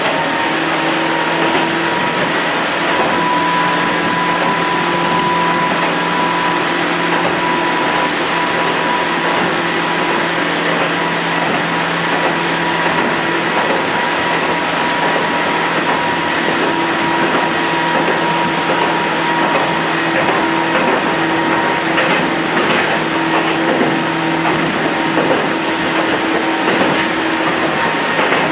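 Toyama Chiho Railway 14760-series electric train running between stations, heard from inside the car: steady rail and running noise with a constant hum carrying a few steady tones.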